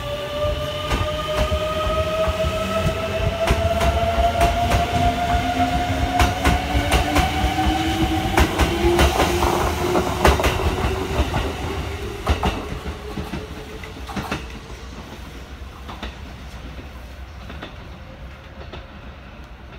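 Kintetsu 23000 series electric train accelerating past, its original Mitsubishi GTO-thyristor VVVF inverter whining in several tones that rise slowly in pitch, with wheels clacking over rail joints. The sound fades away in the second half as the train pulls into the distance.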